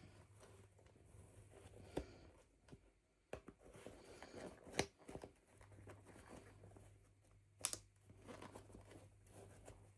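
Faint handling of toy packaging: soft crinkling and tearing, with three sharp clicks or snaps at about two, five and eight seconds in, the middle one loudest.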